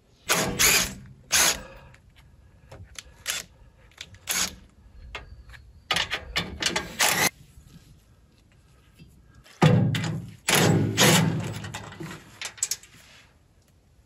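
Tools undoing the bolts on a wood chipper's cover: short runs of a cordless drill with clicks and clanks of metal between them. The longest, loudest run comes about ten seconds in.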